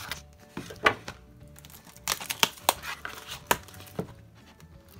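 Cardboard mailer envelope being pulled and torn open by hand: a series of sharp snaps and crinkles of stiff card and tape, loudest about a second in and again between two and four seconds. Faint music plays underneath.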